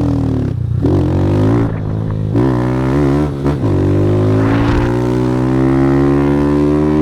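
Motorcycle engine with a Fortuna Trioval aftermarket exhaust, ridden hard: the note breaks off briefly twice early on as it shifts up, then climbs steadily in pitch as the bike accelerates.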